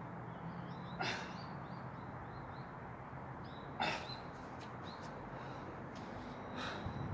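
Two short, sharp breaths forced out through the nose and mouth during push-ups, about a second in and again near four seconds. Steady outdoor background noise runs underneath.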